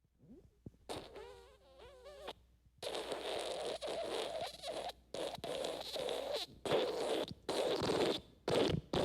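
Wet fart sound effect. A brief wavering, pitched squeak gives way, about three seconds in, to a long wet sputtering broken by short pauses. The sputtering grows choppier toward the end.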